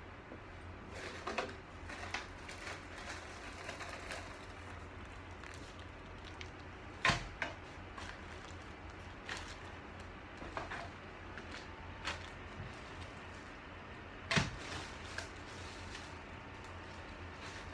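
Scattered clicks and knocks of equipment being handled, with two louder knocks about seven and fourteen seconds in, over a steady low hum.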